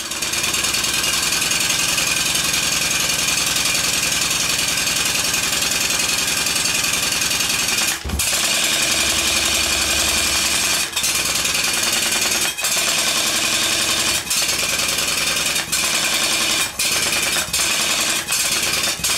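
Stuart 5A single-cylinder model steam engine running fast on compressed air at 40 psi, its exhaust beats so rapid that they merge into a steady chattering hiss. In the second half it breaks off briefly every second or two, the breaks coming closer together toward the end, as the reversing lever is thrown to change its direction while running.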